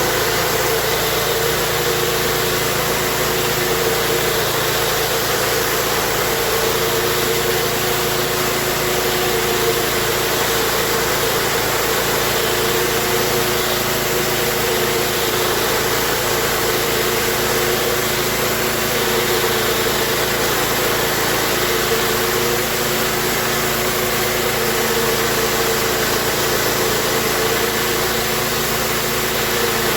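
Gas-engine pressure washer running steadily, its engine hum mixed with the constant hiss of the high-pressure spray.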